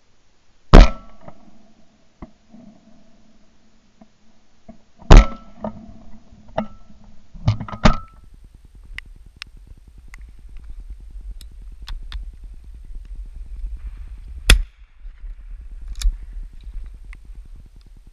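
Two shotgun shots from a 20-bore Beretta Silver Pigeon, about four seconds apart, each with a short ringing tail, followed by two fainter sharp cracks. Then a steady low wind rumble with light ticks, and one more single shot near the end.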